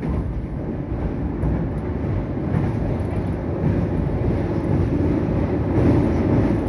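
Steady running noise inside a Meitetsu 2200 series electric train car as it travels toward the next station, a dense low rumble growing slightly louder toward the end.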